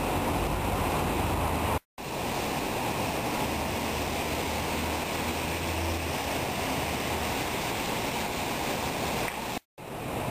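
Steady rain on a city street with traffic hissing over the wet road, and a low vehicle hum through the middle. The sound cuts out to silence twice, briefly: once about two seconds in and once near the end.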